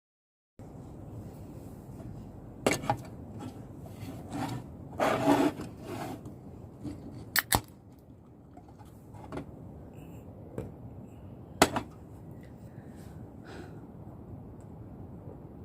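Objects being handled close by: sharp knocks and clicks, including a quick pair in the middle, and a short stretch of rustling or scraping, over a steady low hiss.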